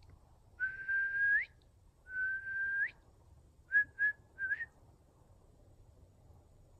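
Whistling: two long level notes, each rising sharply at the end, then three quick short notes.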